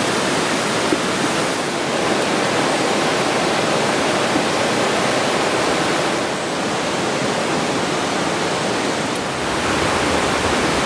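Shallow mountain stream flowing over rocks: a steady rushing of water that eases slightly for a few seconds past the middle.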